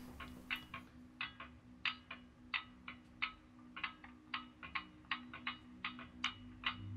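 Slowed-down recording of a bicycle chain clicking, played from several speakers out of sync with each other, so the uneven clicks, about three or four a second, drift in and out of alignment. A steady low hum runs underneath.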